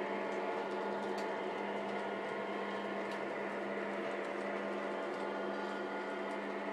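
Lionel Legacy O-gauge model diesel train running on the layout: a steady mechanical hum with a few faint clicks.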